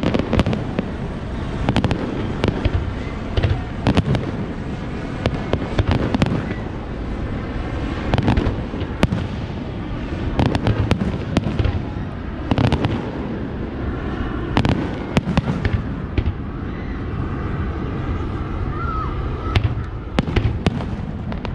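Aerial fireworks display: shells exploding in quick, irregular succession, sharp bangs several times a second over a steady low rumble.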